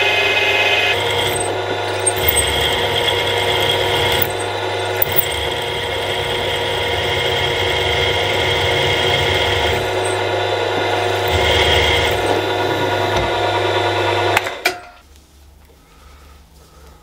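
Bench milling machine running with a steady whine while a 6.8 mm drill bores the tap-drill hole for an M8 thread into a shaft. The tone shifts a few times, and the sound cuts off abruptly with a click near the end.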